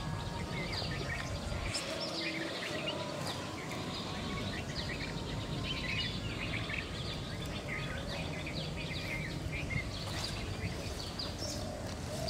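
Birds chirping, many short quick chirps repeated all through, over a steady low background noise.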